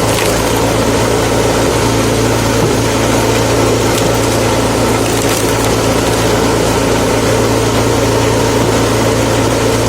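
Lifan 6.5 hp single-cylinder four-stroke petrol engine running steadily, driving a screw-cone log splitter, with a few faint knocks over it.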